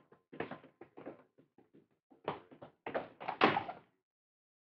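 Radio-drama sound effects: a run of irregular footsteps as several men walk in, then a door shutting with a thunk about three and a half seconds in.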